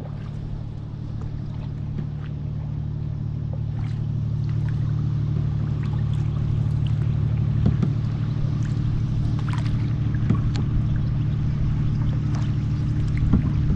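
Small boat under way, its motor running with a steady low hum, with light splashes and ticks of water against the hull.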